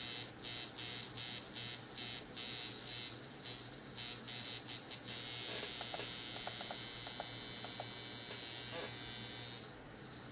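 Coil tattoo machine buzzing at low voltage, around 5 to 6 volts. It runs in short on-off bursts, a few a second, for about five seconds, then runs steadily for about four and a half seconds and cuts off near the end.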